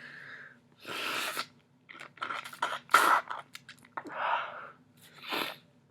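A person with a heavy head cold sniffling and breathing noisily through a stuffy nose, in several separate bursts. The loudest is a sharp sneeze about three seconds in.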